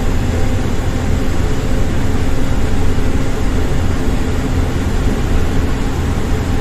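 Engine drone and road noise heard inside a moving bus: a steady low rumble with a hiss of tyres on the road surface.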